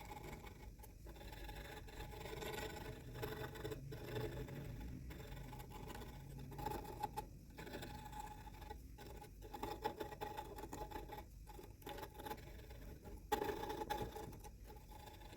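Faint, irregular scraping and rubbing of a tool or abrasive on wood, over a faint steady hum.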